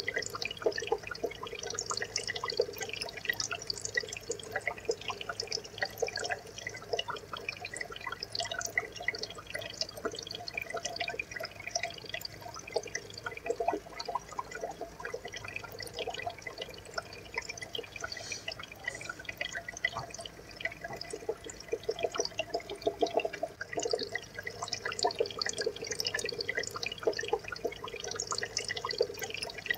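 Aquarium water bubbling and trickling steadily: a dense patter of small drips and pops over a low steady hum.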